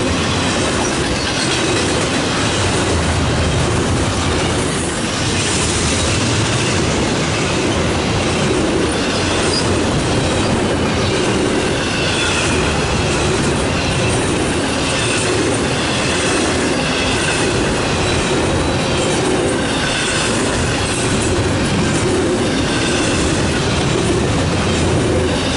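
Double-stack intermodal container train rolling steadily past at close range: a continuous loud rumble of steel wheels on rail, with faint high wheel squeal coming and going.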